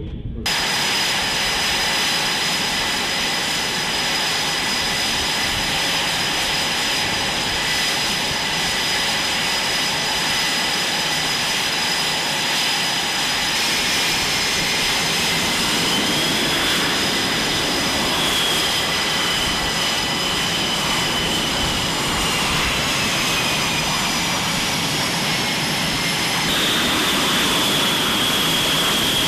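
Twin jet engines of a Blue Angels F/A-18 Super Hornet running on the ground while it taxis: a steady, loud turbine noise with high whining tones. Partway through, one whine slides slowly down in pitch.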